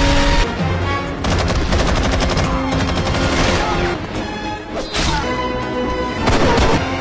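Movie gunfight sound effects: a loud explosion at the start, then a rapid burst of automatic gunfire and a few single gunshots later on, over background score music with long held notes.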